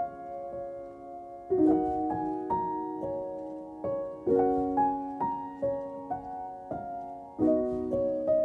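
Background music: a slow, gentle piano piece, with soft chords struck every few seconds and single melody notes between them, each note ringing and fading.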